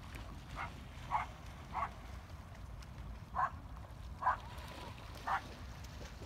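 An animal calling six times, short calls at uneven gaps, the first three about half a second apart, over a low steady rumble.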